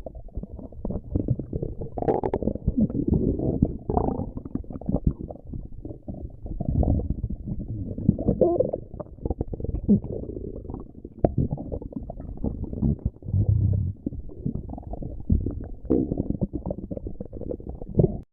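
Stomach growling: a long run of low gurgling rumbles broken by many quick crackling clicks, swelling and fading in waves.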